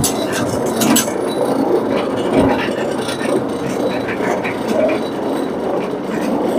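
Carpet-cleaning extraction machine running steadily as the carpet is cleaned.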